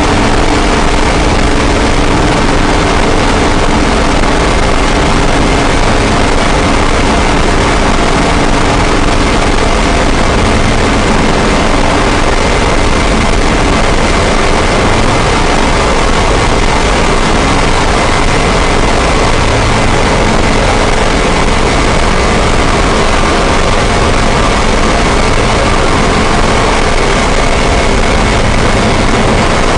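Harsh noise wall: a loud, dense, unchanging mass of distorted noise across the whole range, with faint held drone tones buried in it.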